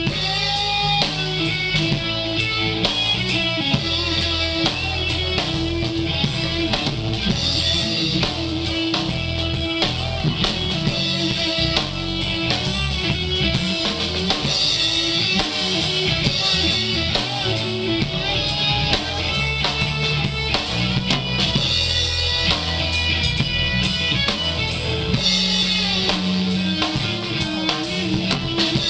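Rock band playing an instrumental passage, with guitar over a drum kit and no singing.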